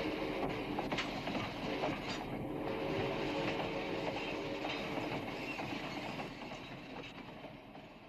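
A train rolling on rails, its wheels clicking over the rail joints, with a steady whine that stops after about six seconds; the whole sound fades out near the end.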